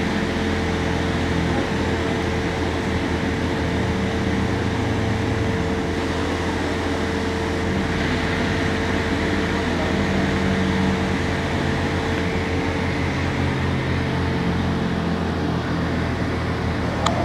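Steady machinery drone of an offshore drilling platform's drill floor: a low hum with a constant mid-pitched tone over a wash of mechanical noise.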